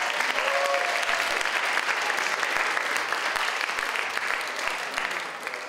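Audience clapping, a steady round of applause that dies away near the end.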